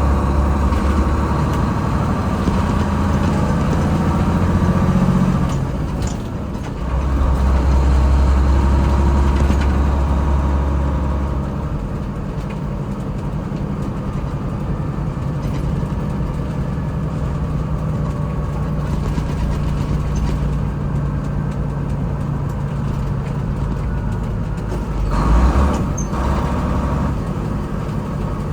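GMC cab-over truck's diesel engine pulling under load while driving, with a brief drop in power about six seconds in as it shifts, then running more steadily and quieter. A short sudden noise comes near the end.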